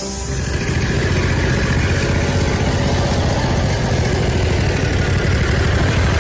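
Engine of a homemade band sawmill running steadily with a low, rapid pulsing.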